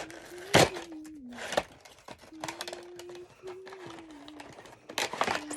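A person, likely the child, humming a low wandering tune in held, stepping notes, over sharp crackles and clatters of plastic packaging being handled, the loudest about half a second in and again near the end.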